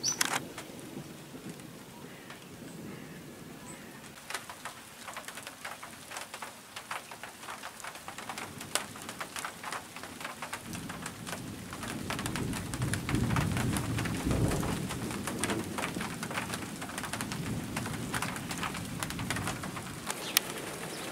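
Scattered raindrops ticking on nearby surfaces during a thunderstorm. About halfway through, a long low rumble of thunder comes in, swells, and lingers to the end.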